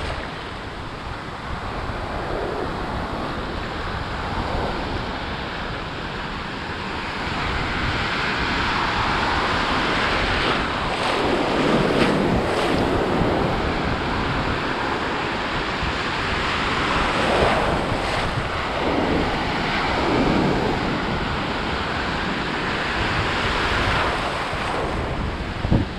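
Rough ocean surf washing and breaking around the microphone, with wind buffeting it. The water surges louder a few times.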